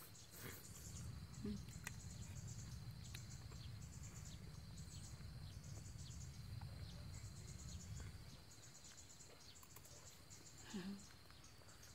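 Insects chirping in a field: repeated trains of fast, high-pitched pulses over a steady high whine, with a faint low rumble underneath.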